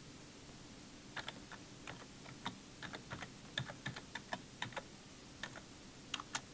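Typing on a computer keyboard: a run of quick, irregular key clicks starting about a second in, as text is typed into a form field.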